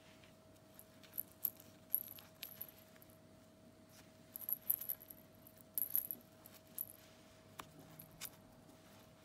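Small metal charms and rings hanging from a handmade junk journal's tags clinking and tinkling in short clusters as fingers handle them, with a faint steady hum underneath.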